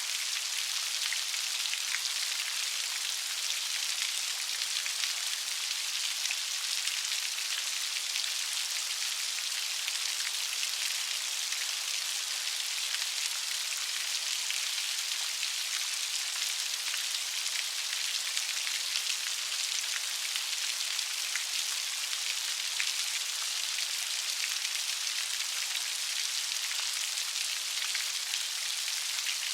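Light rain falling steadily, an even hiss of many small drops pattering on a surface.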